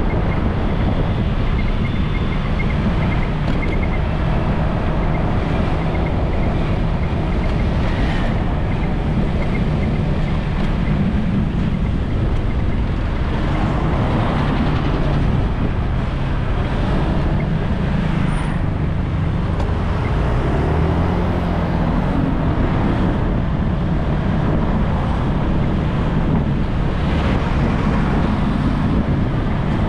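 Steady road and traffic noise from riding a motorbike through town traffic: a continuous low engine drone and rumble, with cars and a bus close by.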